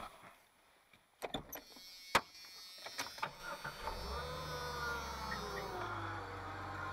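A few sharp clicks and knocks, then about four seconds in the Jeep Cherokee XJ's 4.0-litre straight-six starts up and runs, its speed falling back and settling toward idle. It is started to check the belt drive with newly rebuilt idler pulley bearings, and the owner says the exhaust manifold is cracked and blowing.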